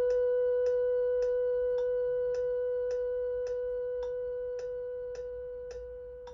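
Computer playback of a choral score: one long held note with a plain, pure tone, slowly fading, under a metronome click ticking evenly a little under twice a second.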